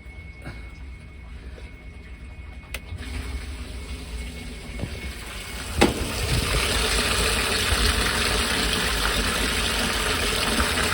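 A sharp click about six seconds in, then a steady rush of water as the new Shurflo livewell pump runs and sprays water into the livewell, over a low rumble.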